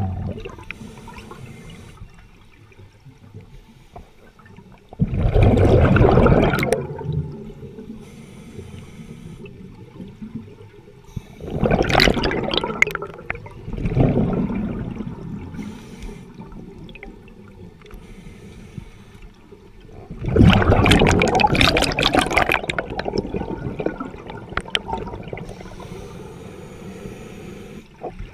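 Scuba diver's regulator exhaust underwater: bursts of exhaled bubbles rush and gurgle for a second or two at a time, several times, with quieter watery noise between breaths.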